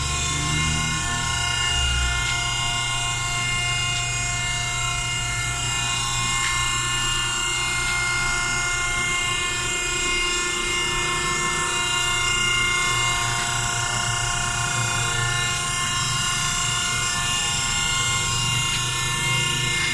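Jacking lubrication hydraulic power unit running under test: electric motors driving gear pumps, a steady hum under a high whine of several steady tones.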